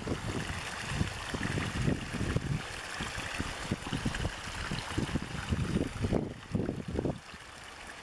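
A small stream of water pouring over an earth bank into a shallow pool, rushing and splashing unevenly, a little quieter near the end.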